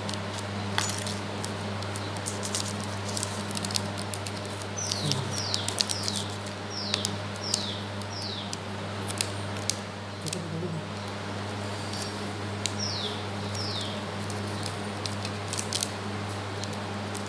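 Paperboard earphone box and cardboard shipping carton being handled: scattered clicks, taps and rustles over a steady low hum. Short falling chirps come six in quick succession about five seconds in and twice more near the end.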